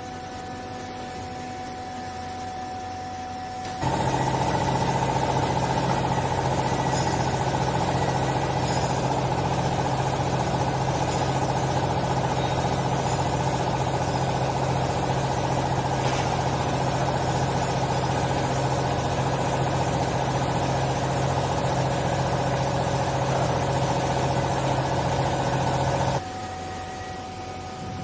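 Hydraulic power pack of a vertical clothes baler, its electric motor and pump running steadily under load as the ram presses the clothes down. It is a steady low drone with a higher hum, switching on suddenly about four seconds in and cutting off suddenly a couple of seconds before the end, with only a fainter machine hum either side.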